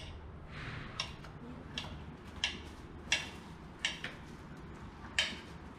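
Kitchen knife cutting a tomato on a plastic cutting board: a series of sharp knocks as the blade meets the board, about one every half second to second, unevenly spaced.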